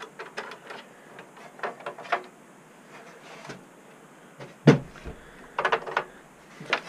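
Clicks and knocks of hands handling an opened desktop PC's sheet-metal and plastic case, with one heavy thump about two-thirds of the way through as the case is turned on the desk, followed by a quick run of clicks.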